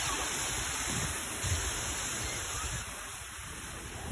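Fountain water jets splashing steadily into a stone basin, with wind buffeting the microphone.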